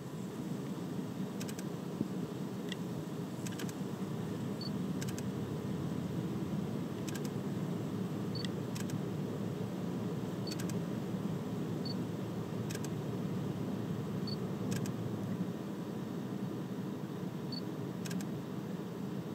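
Camera shutter clicking now and then, about nine times, several as quick double clicks, over a steady low rumbling background. A few faint, short high peeps sound in between.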